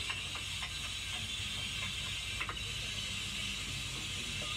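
Soft rubbing and a few faint crackles from a foam squishy toy being squeezed in the fingers close to the microphone, over a steady hiss.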